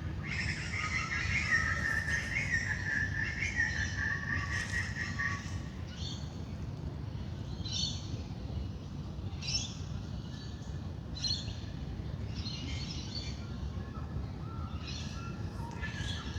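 Wild birds singing in a dawn chorus. A busy warbling song fills the first five seconds or so, then short bright chirps repeat every second or two. Underneath runs a low, steady background rumble.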